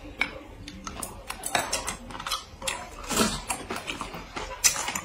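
Chopsticks clicking and scraping against white ceramic rice bowls during eating, many small irregular clicks.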